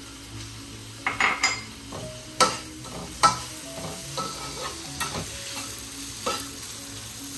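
Metal spatula stirring and scraping chicken and vegetables around a wok as they sizzle over the gas flame. Several sharp clanks of metal on the pan come about a second in, then on and off through the stirring.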